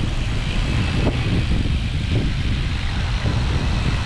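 Steady low rumble of wind and road noise on a moving microphone, as when riding a bicycle.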